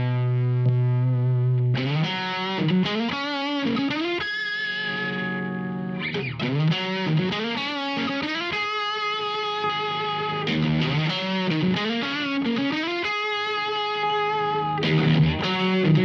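Electric guitar played through a Mozztronics GD-1 Bone Breaker overdrive pedal, distorted. A chord rings for about two seconds, then single notes with vibrato follow, another chord is held around the middle, and the note runs and riffs go on to the end.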